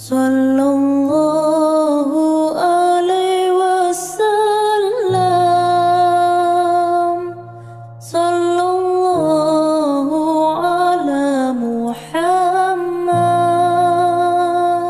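Sholawat, an Islamic devotional song praising the Prophet, sung as long, wavering melodic phrases over a low sustained accompaniment, with short breaks between phrases.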